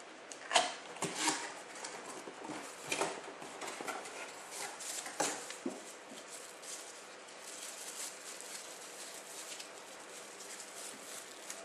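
Handling noise from opening an IPF 900 driving light and taking out its halogen bulb: a string of small clicks, taps and rattles, the sharpest about half a second and a second in and again about three and five seconds in.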